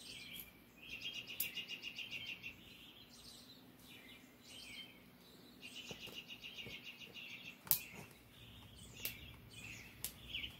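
Faint bird chirping in repeated bursts of rapid, high trills, each about a second long, with a single sharp click about eight seconds in.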